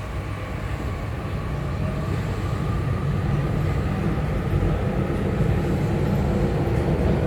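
Interior running sound of a Tokyu 5050 series electric train's motor car: wheels on rail and traction motor, with a faint steady whine. It grows steadily louder as the train picks up speed.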